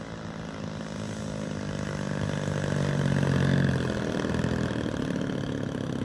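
Radio-controlled model stunt plane's engine and propeller running at a steady pitch as the plane rolls along the runway, growing louder to a peak a little past halfway and then fading as it moves off.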